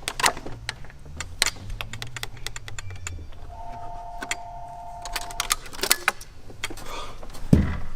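Small metal parts and tools clicking and clinking in irregular taps while working on a fuel pump in an engine bay. A steady high tone sounds for about two seconds midway, and there is a low thump near the end.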